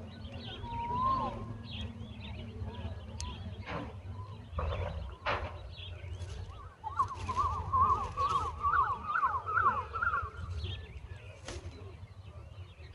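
Birds chirping, with a fast run of rising-and-falling chirps from about seven to ten seconds in. A steady low rumble and a few short knocks sound underneath.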